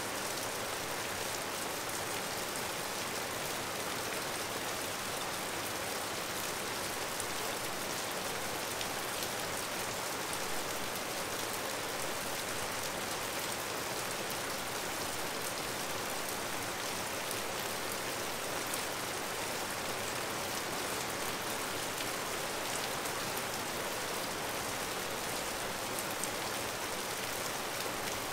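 Heavy rain falling steadily: an even hiss with faint scattered drop ticks.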